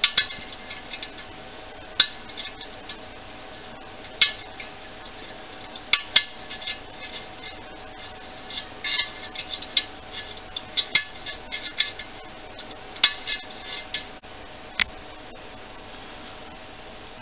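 A straightened paperclip scraping and tapping inside the metal boiler of a Wilesco model steam engine and against its end glass, picking loose limescale. Sharp clicks and scrapes come in short clusters every second or two and stop about fifteen seconds in.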